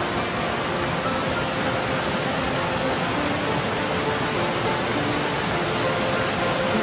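Steady, even rushing noise with no change in level, with faint soft music notes over it.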